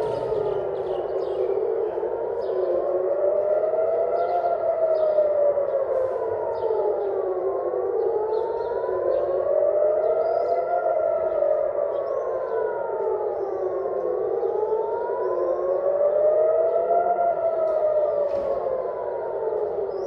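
Civil defense air-raid sirens wailing, several rising and falling out of step with each other, about six seconds per cycle: the warning of an incoming missile attack.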